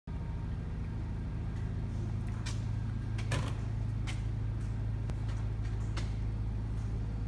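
Waldown drill press with a 1/2 horsepower three-phase motor running steadily, a low even hum. A few light clicks and knocks sound over it, about four in all.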